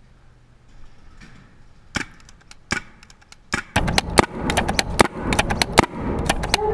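Paintball markers firing: a couple of sharp, separate pops about two seconds in, then from about three and a half seconds in a rapid, irregular string of pops over a loud rushing noise.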